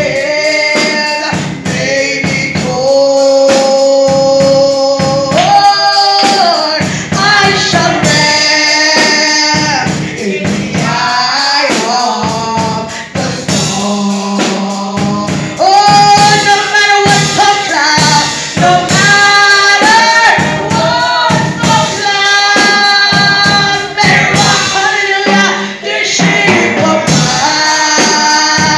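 Gospel worship singing: a woman leads a song into a microphone while other women and a man sing along, over a steady rhythmic percussion beat.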